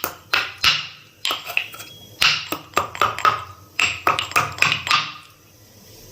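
Whole spices being pounded with a pestle: about fifteen sharp strikes, each with a short ring, at an uneven pace, stopping about five seconds in.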